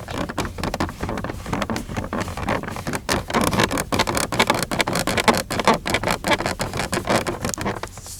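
Car interior plastic trim creaking and rattling under an occupant's leaning weight, a dense run of quick irregular clicks and squeaks like a "piano". A loose part or bent metal mount behind the trim is suspected.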